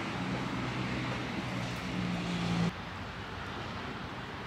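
A steady low hum made of a few held low tones, which shift once partway through. It cuts off suddenly a little under three seconds in, leaving a quieter, even outdoor background.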